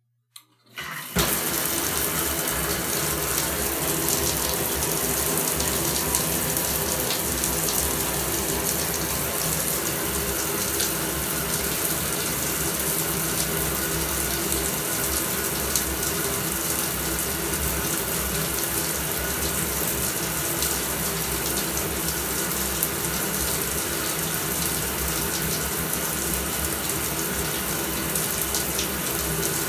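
Shower running: water spraying steadily. After a faint click, the water comes on about a second in and keeps an even, unbroken hiss.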